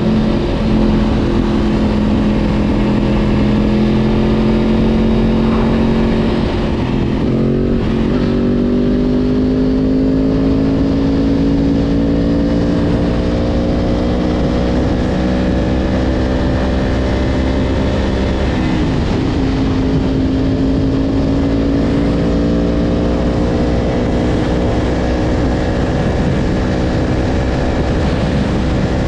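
Yamaha R1 sportbike's inline-four engine running at a steady cruising pitch under way. The note breaks briefly twice, about seven and nineteen seconds in, and each time comes back a little higher and climbs slowly.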